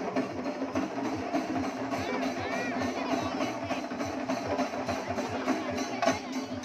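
Loud festival music driven by fast, even drumming, with sustained tones under it and crowd voices mixed in.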